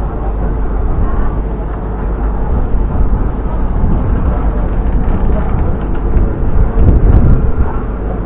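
Steady low rumble of a river cruise boat under way, its engine running under the wash of water and air, swelling louder for a moment near the end.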